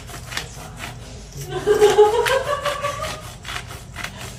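Hand pepper mill grinding black peppercorns, twisted in short repeated rasping strokes. A brief voice sounds in the middle.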